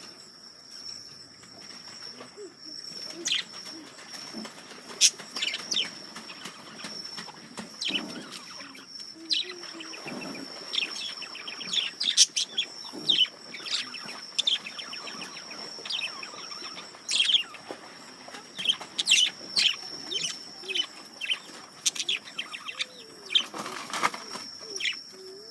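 Male budgerigars chattering: a busy stream of short, sharp chirps and clicks, with a steady high-pitched whine underneath.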